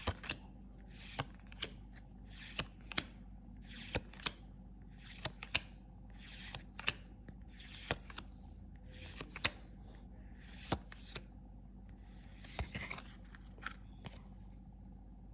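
Dragon Ball Super trading cards being flipped through by hand, each card slid off the front of the stack and tucked behind the others with a short swish and a sharp snap, about once a second. A slightly longer rustle comes near the end.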